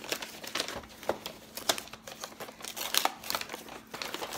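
Brown kraft-paper gift wrapping crinkling and tearing as it is pulled open by hand, in irregular sharp crackles.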